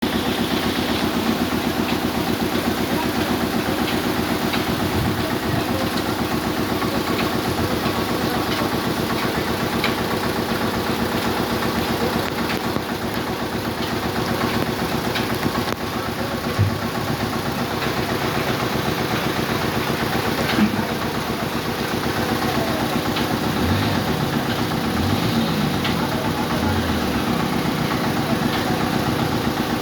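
An engine running steadily at idle, its level unchanging, with a couple of brief knocks partway through.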